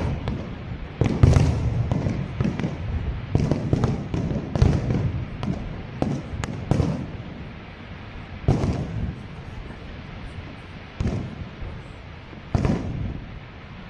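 Aerial fireworks shells bursting: a quick run of booms and cracks through the first half, then single booms every couple of seconds.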